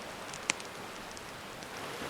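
Campfire crackling, with one sharp pop about half a second in and fainter ticks, over a steady hiss of gentle ocean surf.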